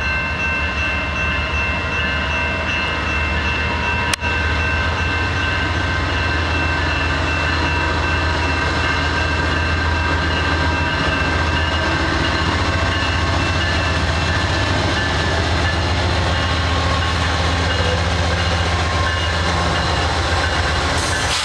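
A train running past, with a steady low diesel drone and rolling wheels, plus a few steady high-pitched tones. There is a single sharp click about four seconds in.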